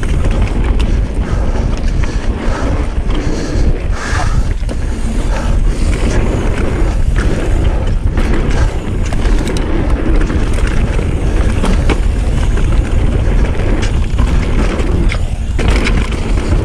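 Mountain bike descending a packed-dirt flow trail: steady rolling noise of the knobby tyres on dirt, with wind buffeting the microphone and an occasional sharp clatter as the bike hits bumps.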